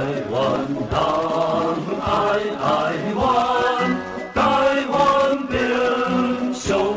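Soundtrack music: a group of voices singing together in a slow, chant-like song.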